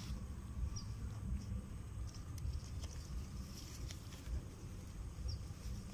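Steady low rumble of wind on the microphone, with faint scattered clicks and rustles and two short high chirps, about a second in and near the end.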